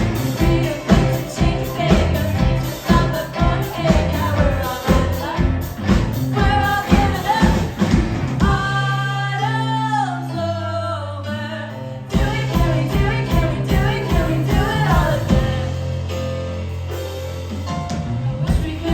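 Live band playing a song with a lead vocal over drums and bass at a steady beat. About halfway through, the drums drop out for a few seconds, leaving held sung notes over falling bass notes, and then the full band comes back in.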